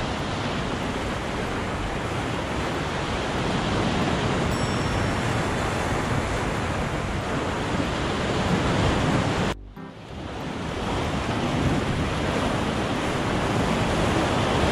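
Sea waves breaking and washing over a rocky shore: a steady rush of surf that drops out for a moment about ten seconds in, then resumes.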